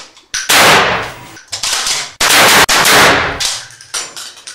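Shotgun firing: about three loud blasts in quick succession plus a smaller one, each trailing off over most of a second.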